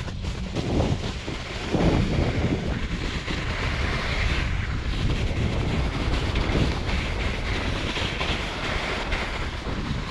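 Snowscoot boards sliding fast down a groomed snow slope, a steady scraping hiss on the snow, with wind rumbling over the microphone.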